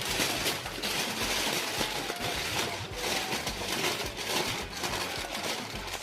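Aluminium foil crinkling and rustling in a steady stream of small crackles as it is folded and pressed around a fish in a second layer.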